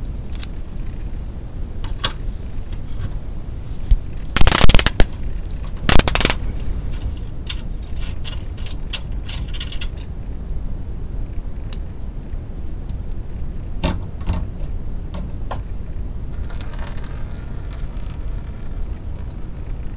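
Hand ratchet with a 13 mm socket clicking as it backs out a fuel filter bracket bolt under a car, with two much louder bursts about four and six seconds in. Sparser light metal clicks follow as the bolt and bracket are handled.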